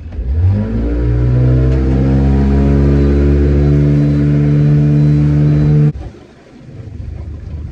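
Boat engine opened up, its pitch rising over the first second, then running loud and steady at high revs. It cuts off suddenly about six seconds in, leaving a quieter low rumble.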